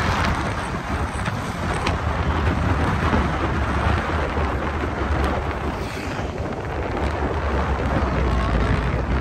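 A vehicle moving along a road: a steady low rumble with wind noise buffeting the microphone.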